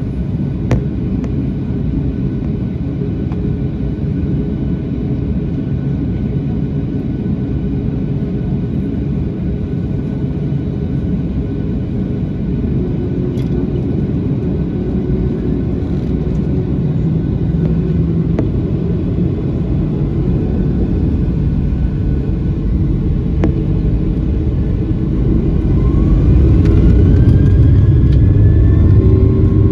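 Cabin sound of a Boeing 737-800 on its takeoff roll: the CFM56-7B engines running at takeoff thrust under a rumble from the wheels on the runway, with a few sharp thumps. The noise grows steadily louder as the jet accelerates, and a rising whine joins near the end.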